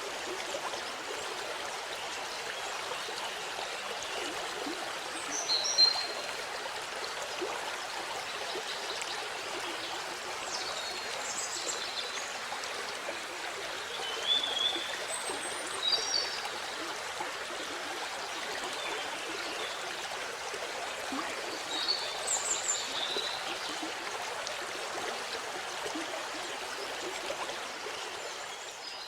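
Waterfall water rushing steadily, with a few short bird chirps now and then over it.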